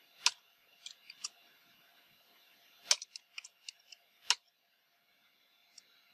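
Computer keyboard keystrokes: about a dozen separate key clicks with three much louder strokes, near the start, about three seconds in and just after four seconds, then a pause and one faint click near the end.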